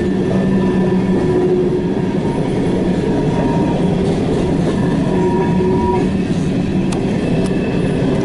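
Empty coal hopper cars rolling past in a steady, continuous rumble of wheels on rail. Faint wheel squeal comes and goes as the cars take the curve of the wye.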